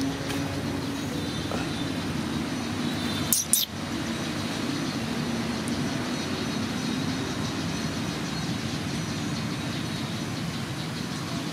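Steady low background hum, with one brief high-pitched squeak about three and a half seconds in.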